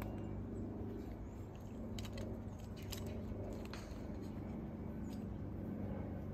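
Gear being handled and rummaged in a haversack: a few short clicks and light rustles over a steady low background hum.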